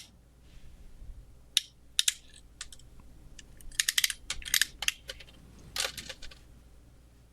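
RJ45 crimping tool squeezing a pass-through connector onto a Cat6 cable: a series of sharp clicks and snaps, thickest about four seconds in, as the tool crimps the connector and trims the wire ends poking out the front.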